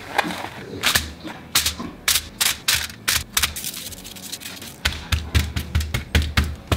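Shaker bottle of dry rub shaken over raw burger patties: a quick run of sharp rattling shakes, about three a second.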